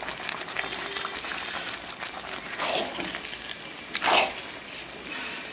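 Coconut, milk and date-palm jaggery filling simmering in a pan with a steady sizzle, and two stirring strokes through it, about a second and a half apart, a little past the middle.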